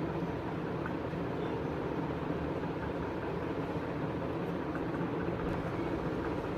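Steady low background noise with no distinct events.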